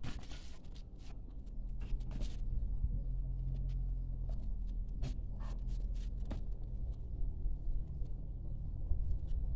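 Steady low rumble on a phone microphone, with scattered light clicks and taps.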